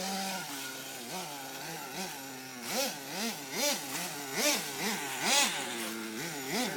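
Small gasoline engine of a ridden vehicle running low, then revved in a rapid series of short blips, about two a second from two and a half seconds in, its pitch climbing and dropping with each one.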